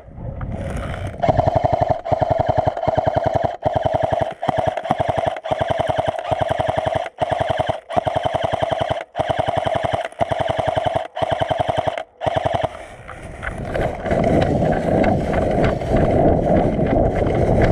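Electric airsoft gun firing long full-auto bursts: a rapid stream of shot clacks over a steady motor whine, broken by several short pauses, stopping about 12.7 seconds in. A steady rustling hiss follows.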